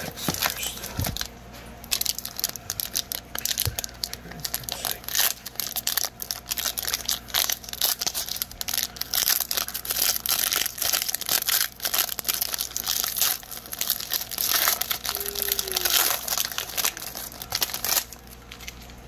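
Foil wrappers of 2020 Chronicles trading-card packs crinkling and being torn open, a dense irregular crackle that stops about a second before the end.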